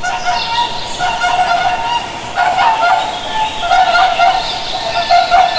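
Swans calling: a run of repeated, overlapping pitched calls from more than one bird.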